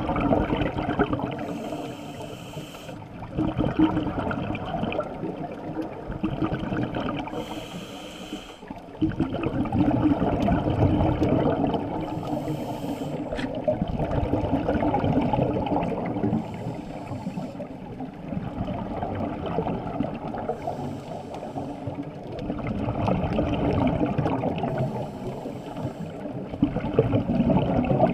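A scuba diver breathing through a regulator underwater. Each inhale is a short hiss, and each exhale is a longer bubbling rumble. The cycle repeats about every four to five seconds.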